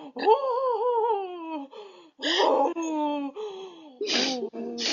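A girl making silly wordless vocal noises: a wavering, whiny voice that slides down in pitch, then several short breathy huffs with more whining between.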